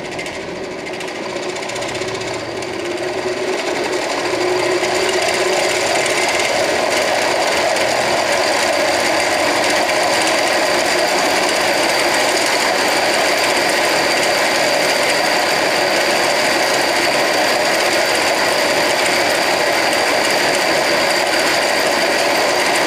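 Chain-driven 48 V 1000 W brushless DC motor spinning a scooter's raised rear wheel, speeding up over the first few seconds and then running steadily with a continuous mechanical rattle. The drive chain is loose and touching, which causes the noise.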